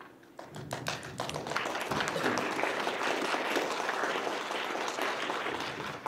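Audience applauding: a few scattered claps that quickly swell into steady applause, thinning out near the end.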